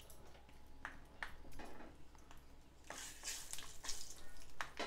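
Peanuts frying in hot oil in a stainless steel pan, with faint scattered crackles and pops. About three seconds in, a wooden spatula stirs them and the sizzling grows denser and louder.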